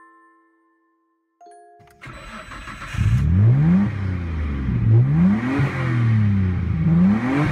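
A few short electronic chime tones, then from about two seconds in a car engine revved up and down over and over, each rev rising and falling in pitch.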